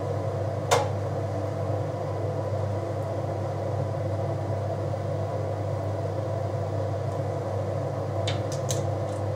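Steady electric hum of a running kitchen appliance. A sharp clink comes about a second in and a quick run of light clicks near the end as an olive oil bottle is handled over a metal baking pan.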